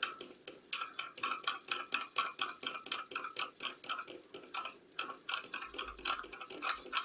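Rapid, uneven light clicking and tapping, several clicks a second, as a rifle powder charge is worked up by hand into a reloading scale pan to bring it up to weight.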